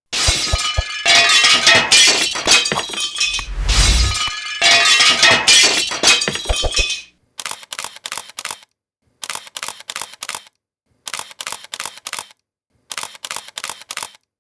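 A long clattering crash full of sharp clinks, like dishes or glass breaking, for about seven seconds. It is followed by rapid bursts of knocking, five quick groups about a second and a half apart.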